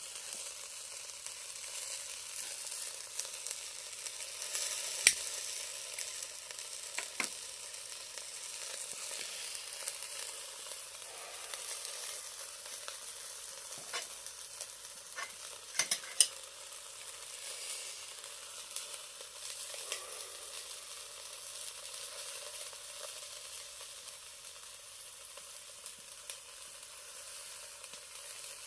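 Chicken sizzling on a charcoal shichirin grill: a steady hiss broken by scattered sharp pops, the loudest about five seconds in and a close pair around the middle.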